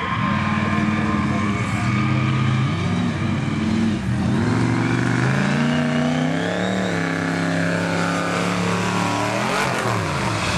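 Mega mud truck's engine running hard under throttle, its pitch climbing in steps through the middle, then dropping quickly as the truck passes close near the end.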